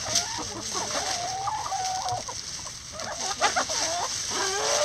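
A flock of hens clucking and calling over one another, several calls overlapping, some of them long wavering notes.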